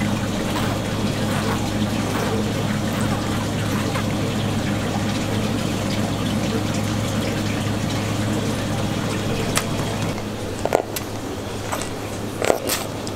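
Steady running-water noise over a constant low machine hum. About ten seconds in it gets quieter, and a few light clicks and knocks follow.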